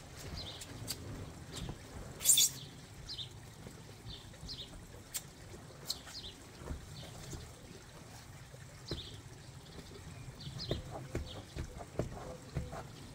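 Water sloshing and scraping as a long-handled cleaning tool is worked around the floor of an inflatable hot tub, with a sharp noisy burst about two seconds in and a run of clicks and scrapes near the end. Small birds chirp throughout.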